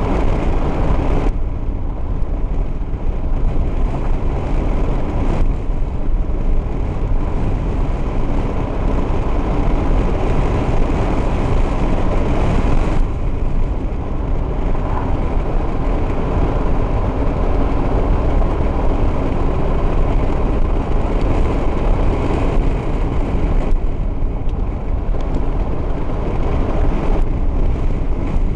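Steady road noise inside a moving car's cabin: tyre rumble and engine heaviest in the low end, with a rushing hiss above that drops and returns a few times.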